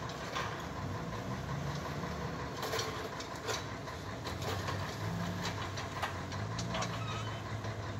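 Truck's diesel engine idling steadily, heard from inside the cab, with a few short clicks in the middle.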